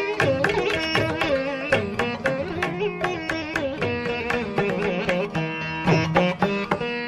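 Indian classical-style instrumental background music: a plucked string melody with sliding, bending notes over steady hand-drum strokes.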